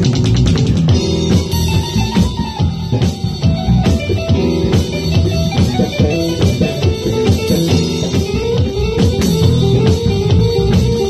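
Live band music: a Roland electronic drum kit played at a steady groove through speakers, along with a guitar.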